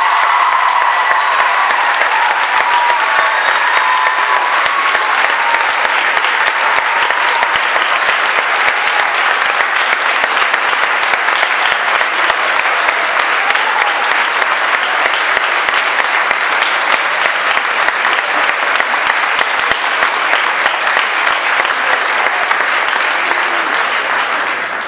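Audience applauding steadily, the clapping dying away right at the end.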